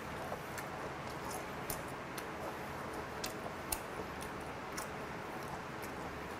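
Close-miked chewing of whole steamed squid: faint, irregular wet mouth clicks, about a dozen, over a steady background hiss.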